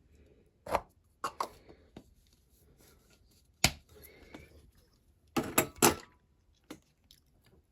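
Scattered sharp clicks and knocks of small parts and tools being handled on a workbench, the loudest few close together a little after five seconds in.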